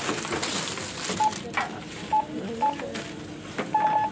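Supermarket checkout barcode scanner beeping as items are scanned: three short beeps, then a longer beep near the end, over rustling and clatter at the till.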